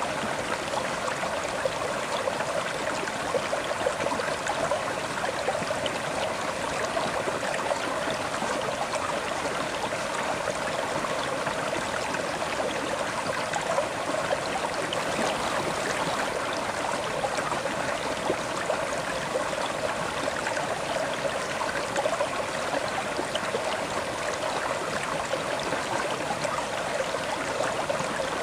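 A river flowing over rocks: a steady, even rush of water with fine splashing and gurgling.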